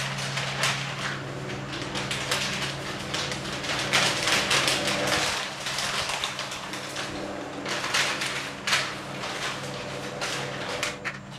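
Newspaper rustling and crackling unevenly as it is held against a face and blown by an electric desk fan, with the fan's steady low hum underneath.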